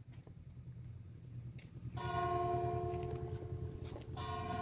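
Church bell struck twice, about two seconds in and again near the end, each stroke ringing on, over a low steady rumble.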